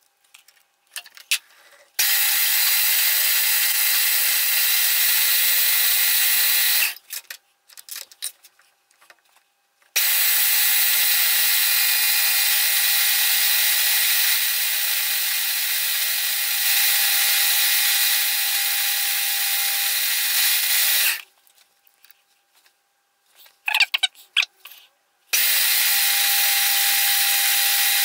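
Metal lathe running, machining a small brass rod held in its chuck: a steady whir in three long stretches that start and stop abruptly. Short clicks and taps fall in the quiet gaps between them.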